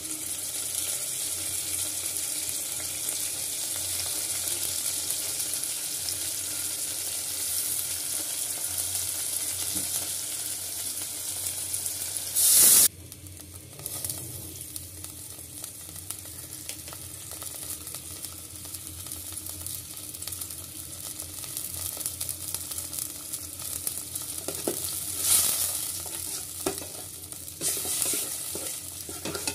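Sliced onions frying in hot oil in an aluminium pot, sizzling steadily as a metal spatula stirs them. About halfway a loud burst of sizzle cuts off suddenly, and the frying is quieter afterwards, with a few louder sizzles near the end as spice paste is stirred.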